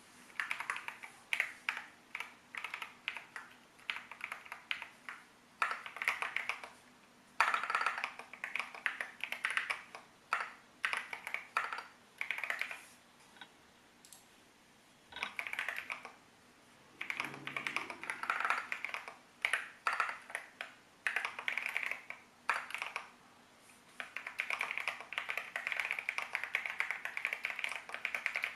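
Typing on a Keychron Q13 Max Alice-layout mechanical keyboard with Gateron Jupiter Banana tactile switches: sharp, poppy keystrokes come in bursts with short pauses and settle into steady continuous typing for the last few seconds.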